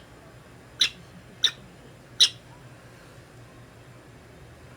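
Prairie dog giving three short, sharp, high-pitched squeaks less than a second apart in the first half, the last one the loudest.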